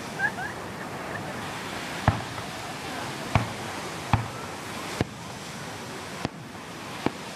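Fireworks going off: six sharp bangs, spaced about a second apart, over a steady rushing background noise.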